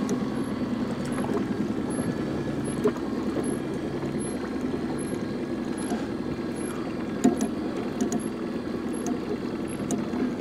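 Small outboard motor idling in neutral, a steady low hum with wind and water noise, and faint light ticks about twice a second.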